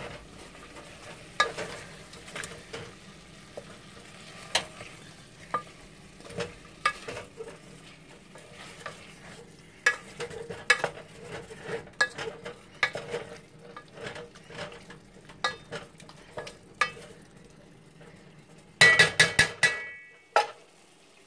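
Wooden spoon stirring spiced chicken pieces in a metal pot, scraping and knocking against the pot over a faint sizzle of frying. Near the end comes a quick run of loud clanks with a short metallic ring.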